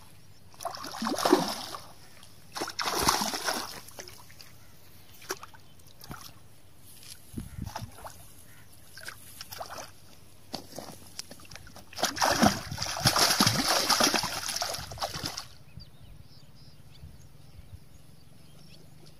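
Hooked fish thrashing and splashing at the water surface close to the bank while being played on a rod, in separate bursts: short ones about a second and three seconds in, and the longest, loudest one lasting about three seconds from around twelve seconds in.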